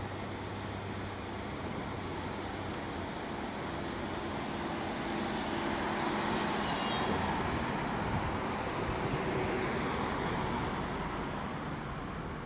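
Road traffic: a vehicle passing, its noise swelling to a peak in the middle and easing off near the end over a steady low hum.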